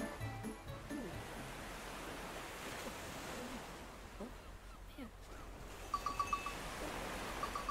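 Surf washing on a beach, swelling and easing, with a few faint chirps and two quick runs of short high pips near the end.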